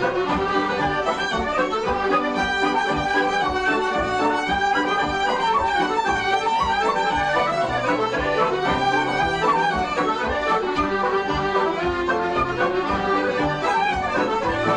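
Lively Irish traditional instrumental music playing at a steady level.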